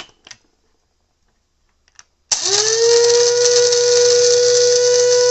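Electric blade coffee grinder with stainless steel blades switched on about two seconds in. Its motor quickly whines up to a steady high pitch and runs, with a loud hiss of coffee beans being chopped. A couple of light clicks come just before it starts.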